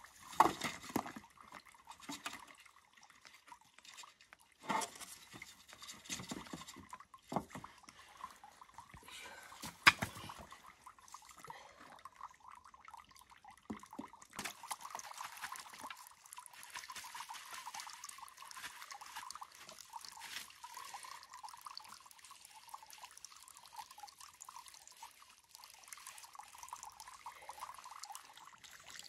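Water dripping and sloshing as small fish are shaken from a wet mesh landing net into a metal basin of muddy water and handled there, with a few sharp knocks in the first ten seconds. From about a third of the way in, a steadier watery patter of hands working through the fish in the water.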